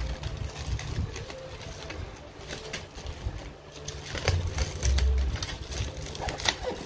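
Thin clear plastic protective film being peeled and crinkled off the body of a new air fryer, with irregular crackling and a few dull handling thumps near the start and about four to five seconds in.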